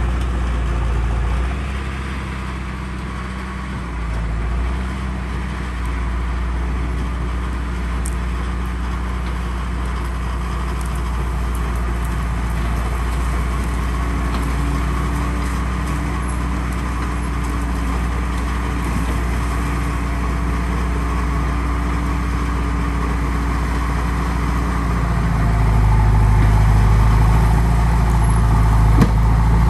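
Heavy diesel engine of earthmoving machinery running steadily, growing louder about 25 seconds in.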